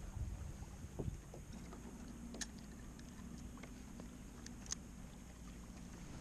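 Water lapping against a pedal fishing kayak's hull, with a low steady rumble and a couple of soft thumps in the first second. A few small sharp clicks of fishing tackle being handled come about two and a half and nearly five seconds in.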